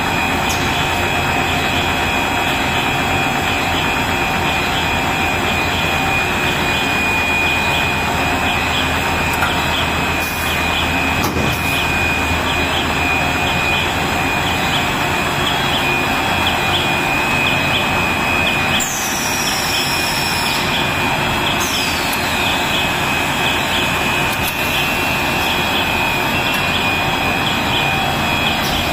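Cast stretch-film production line running: a loud, steady machine noise with a constant high whine. Two short falling high-pitched sounds come about two-thirds of the way through.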